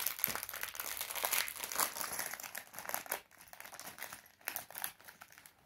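A clear plastic Lego parts bag being pulled open and crinkled by hand. The crinkling is dense for about three seconds, then thins to scattered crackles.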